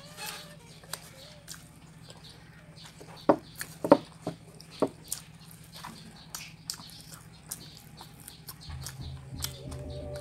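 Close mouth sounds of someone eating rice and fish by hand: scattered wet chewing clicks and lip smacks, with a cluster of louder smacks about three to four seconds in. Background music comes in near the end.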